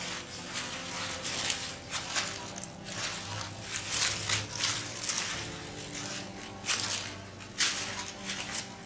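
Chopped dry banana leaves and bran being mixed by hand inside a black plastic trash bag: rustling, crackling leaf pieces and crinkling plastic in irregular bursts.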